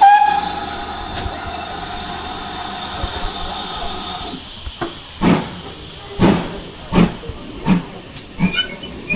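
GWR 2-6-2 prairie tank locomotive no. 4110 lets off a long hiss of steam with a whistling tone that sags a little in pitch and stops about four seconds in. It then starts to move off with about six slow exhaust chuffs, roughly one every three-quarters of a second.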